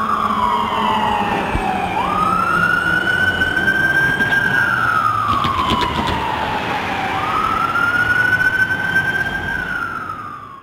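Fire engine's siren on a slow wail, its pitch falling over two or three seconds, then snapping back up and climbing again, in a cycle of about five seconds.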